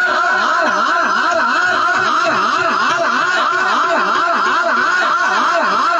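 A large crowd crying out together, many voices overlapping in repeated rising-and-falling calls, several each second, as the audience calls out with both hands raised.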